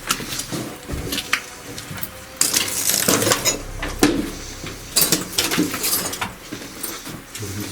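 Footsteps crunching over scattered debris, with irregular sharp clinks and scrapes of loose fragments underfoot.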